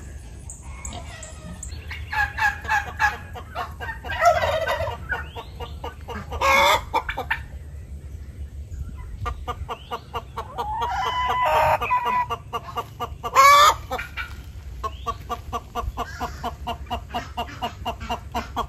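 Backyard chickens clucking, with a hen repeatedly breaking into loud, harsh squawks: the egg-laying song, a hen announcing she has just laid an egg.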